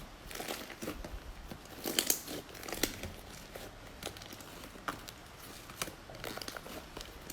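Slime being squeezed and poked by hand, giving irregular small clicks and crackles.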